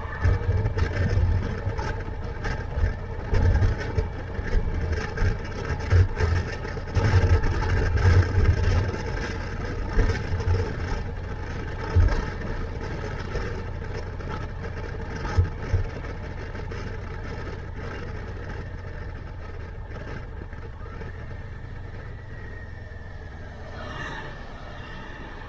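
Motorcycle engine running on the move, with wind buffeting the helmet-mounted microphone in heavy low gusts. The buffeting dies down in the second half as the bike slows, leaving a steadier, quieter engine note.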